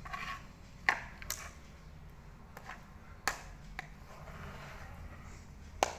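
Slime being stirred in a container: several sharp, separate clicks and taps as the mixture is worked, with no steady rhythm.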